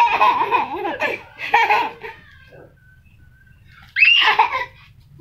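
A toddler laughing in bursts, then a short high-pitched squeal about four seconds in.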